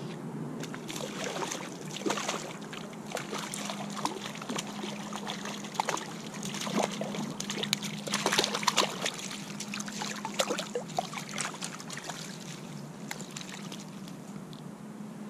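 Water splashing and trickling in many small, irregular splashes: a hooked trout thrashing at the surface while being played in on a fly rod.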